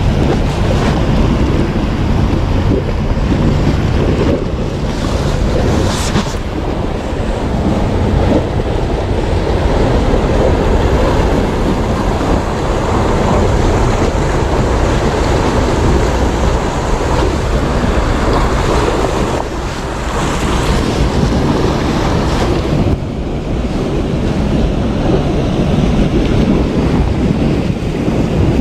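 Wind buffeting the microphone over the wash of sea waves: a steady, loud rushing noise with deep rumble.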